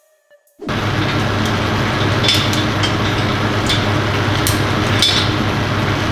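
A loud, steady mechanical hum with a low drone, like a running shop machine, starting abruptly about a second in, with a few short clicks from tools working in the engine bay.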